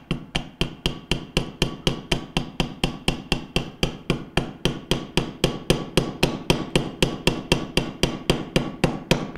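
Hammer tapping the steel inner ring of a rubber motor mount, driving it onto the end bell of a Bell & Gossett Series 100 pump motor: a steady, rapid run of metallic taps, about four or five a second, working around the ring to seat the mount flush.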